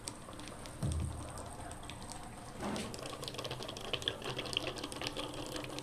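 Water running into a 15-litre electric geyser's tank as it fills through the inlet pipe: a faint steady rush with scattered small clicks. There is a low thump about a second in.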